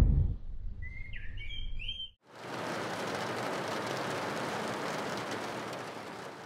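A car's low road rumble with a few quick, rising bird chirps over it. After a sudden break, the steady hiss of rain on a car window, fading near the end.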